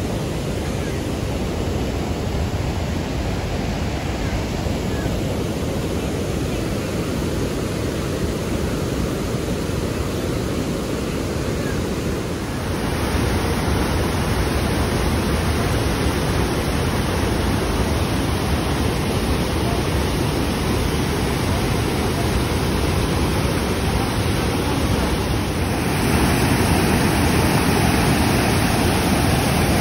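Floodwater pouring through the open spillway gates of a dam and churning downstream, a steady rushing of water that grows louder in two steps, near the middle and near the end.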